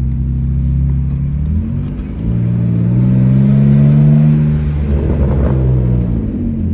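BMW E46 inline-six engine through a straight-piped exhaust, blipped from idle: the pitch climbs about a second and a half in, holds for a couple of seconds, then falls back to idle.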